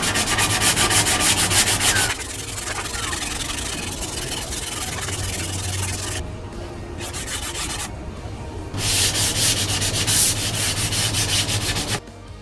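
Sanding: a rasping hiss over a steady low hum, loudest at the start and again from about nine seconds in, with a quieter stretch between, cutting off sharply near the end.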